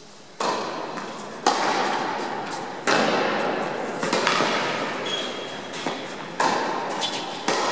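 Tennis ball being struck by rackets and bouncing on an indoor hard court during a rally. Sharp hits come about every second or so, each ringing on in the large hall's echo.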